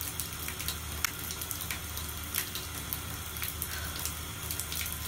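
Steady background noise in a small tiled bathroom: a low hum under an even hiss, with scattered faint clicks and crackles.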